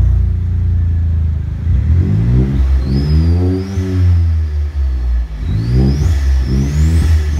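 2022 Geely Coolray's turbocharged three-cylinder engine through an aftermarket dual-exit catback exhaust, idling steadily and then revved up and let back down three times from about two seconds in. A faint high whistle rises and falls with each rev.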